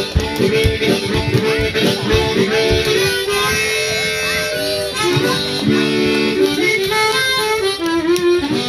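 Harmonica played cupped against a handheld microphone, moving between held chords and short melodic phrases at a steady tempo. Hands clap along in time, most clearly in the first few seconds.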